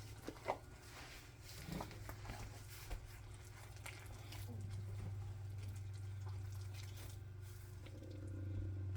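Hands mixing and kneading bread dough in a bowl: faint soft squishing and light taps, over a steady low hum.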